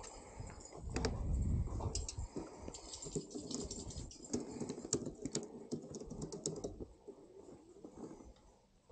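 Irregular light clicks and taps of hand work on an e-bike's rear wheel as its axle is tightened, with a low rumble over the first couple of seconds; the clicking thins out after about seven seconds.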